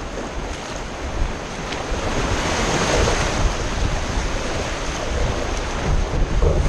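Rushing whitewater in river rapids, with wind buffeting the microphone in low rumbles; the rush grows louder about two seconds in.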